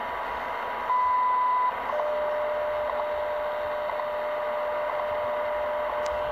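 10 MHz shortwave time-signal broadcast (WWV) through the loudspeaker of a RadioShack DX-398 receiver, over static hiss. A short tick marks every second. About a second in comes a longer, louder 1 kHz beep of under a second marking the minute, followed by a steady lower tone with the ticks going on.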